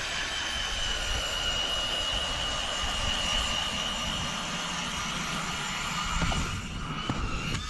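Power ice auger running as it drills through lake ice: a steady high motor whine with a rushing, grinding noise under it. The whine sags slightly in pitch just before it cuts off at the end.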